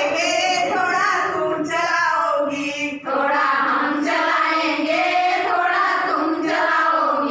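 A group of women singing a song together, with a brief pause about three seconds in.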